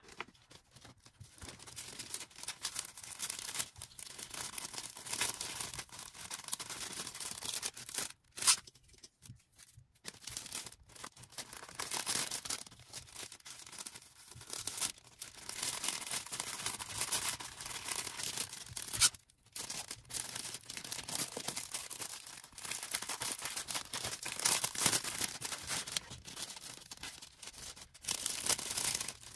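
Packaging being handled by hand: steady rustling, crinkling and tearing with short pauses, and a sharp click about eight seconds in.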